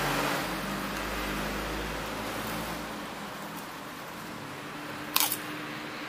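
Roadside street ambience: a steady traffic hum with a low rumble fading out over the first few seconds, and one short, sharp click about five seconds in.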